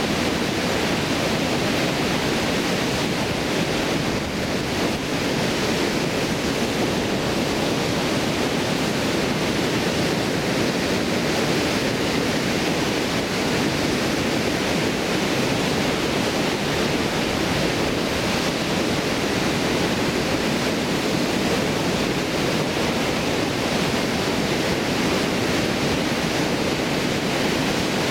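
Water pouring over a stone weir into a fast-flowing river: a steady, loud rushing.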